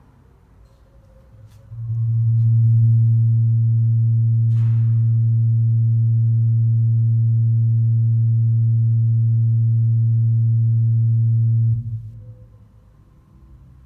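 A steady low hum tone with a row of even overtones, swelling in about two seconds in, holding level for about ten seconds, then cutting off abruptly.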